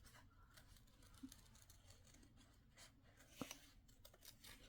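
Near silence with a few faint snips of scissors cutting out a shape, spaced a second or two apart.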